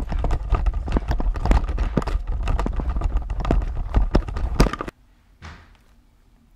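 Rapid, irregular thumping and knocking of running footsteps and a handheld camera jolting low over the floor, cutting off suddenly about five seconds in. A brief faint rustle follows, like a paper bag.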